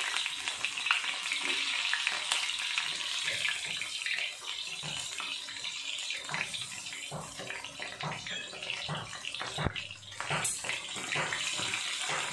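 Flour-coated chicken feet deep-frying in hot oil in a wok: a steady sizzle with scattered crackles and pops as more pieces are lowered into the oil with tongs.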